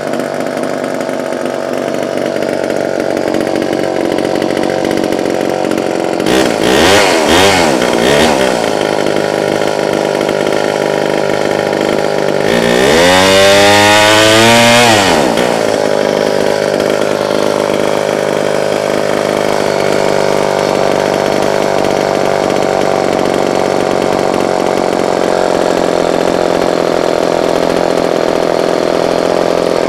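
Homelite XL-903 two-stroke chainsaw idling steadily, blipped up twice in quick succession about six seconds in, then revved once for a few seconds about twelve seconds in, climbing and falling back to a steady idle.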